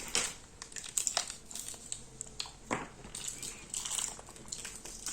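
Plastic snack wrappers crinkling and crackling in irregular handling, with scattered short clicks.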